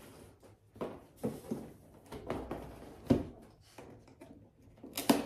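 Cardboard box being handled on a table: rustling and knocks, with a heavy thump about three seconds in as the long box is laid down flat, and a few sharp clicks near the end.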